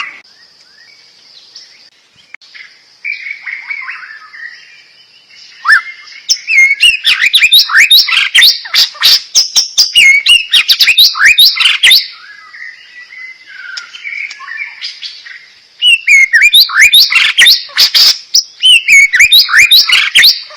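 Songbird singing fast, loud runs of sharp chips and short whistled notes, in two long bursts with softer warbling between them, over a steady high-pitched buzz.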